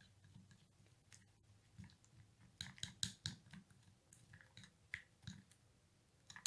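Faint clicks and scrapes of a spoon against a small glass bowl as a thick paste is stirred, with a quick run of taps about three seconds in and a few single ticks later.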